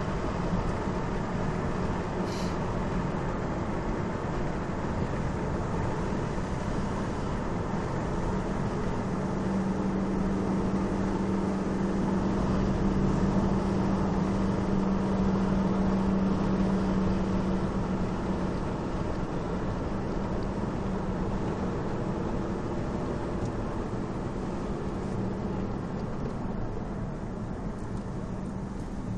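Car driving at a steady speed, heard from inside the cabin: continuous road noise with a low engine hum that grows louder for several seconds in the middle. A brief tick sounds about two seconds in.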